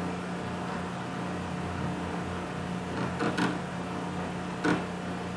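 Steady low electrical hum, mains hum in the recording, with a few faint short ticks a little after three seconds in and again near the end.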